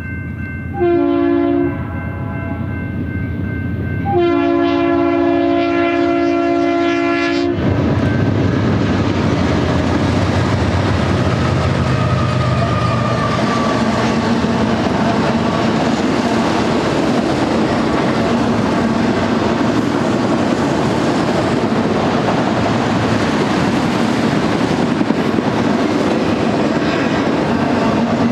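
A BNSF freight locomotive's air horn sounds a short blast and then a long one for the grade crossing, the closing notes of the crossing signal. The train then rolls by, its autorack cars rumbling and clacking steadily over the rails.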